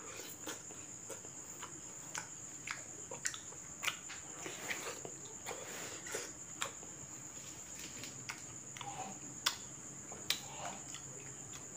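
Close-up chewing of soft, ripe mango slices: soft wet mouth clicks and smacks at irregular intervals. A steady high-pitched insect trill runs underneath.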